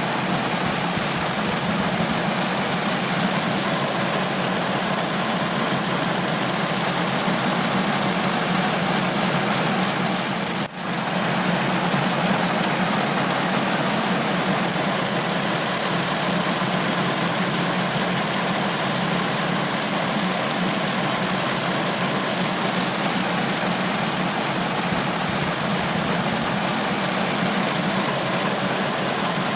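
Steady heavy rain drumming on a car roof, an even continuous patter, with a brief momentary dip in level about ten seconds in.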